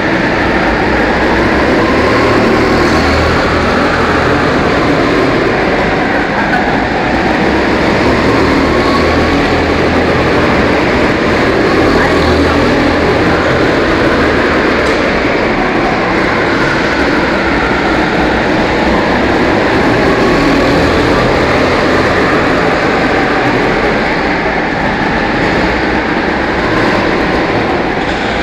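Go-kart engines running continuously, their pitch rising and falling as the karts speed up and slow down around the track.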